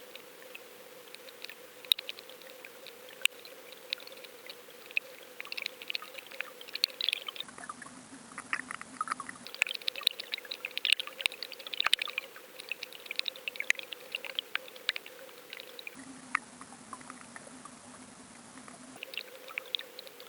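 Underwater audio from a lure-mounted action camera: scattered crackles and clicks of water over a steady faint hum, changing abruptly a few times.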